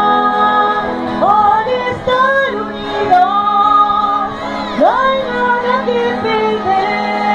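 Adult choir singing a song in Spanish in long held notes with sliding pitch changes, accompanied by an acoustic guitar.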